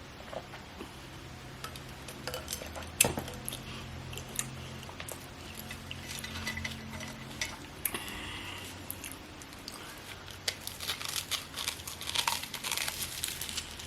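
Close-miked eating sounds: chewing and crunching with small clicks, a sharp knock about three seconds in, and a denser stretch of crackly crunching near the end.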